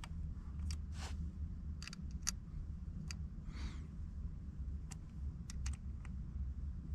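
Scattered small clicks and taps, about ten of them spread irregularly, as parts are handled during a steering wheel install, with one brief scrape a little past the middle. A low steady hum sits underneath.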